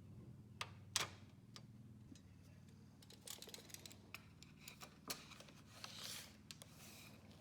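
Faint, scattered small clicks and taps, the sharpest about a second in, with a brief soft rustle about six seconds in.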